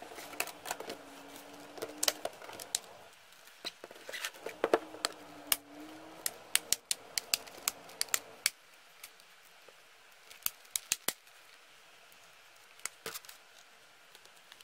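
Plastic laptop case clicking and tapping as it is handled and pressed to snap the bottom cover clips back into place. The clicks come sharp and irregular, dense for the first eight seconds, then a few scattered ones. A faint low hum sounds twice in the first half.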